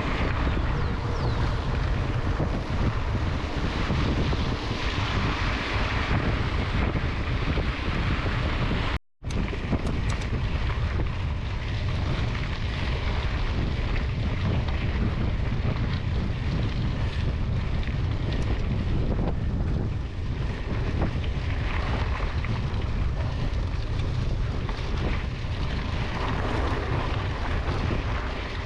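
Wind buffeting the microphone of a handlebar-mounted action camera on a moving mountain bike, mixed with tyre noise on a gravel road. The sound cuts out for a moment about nine seconds in.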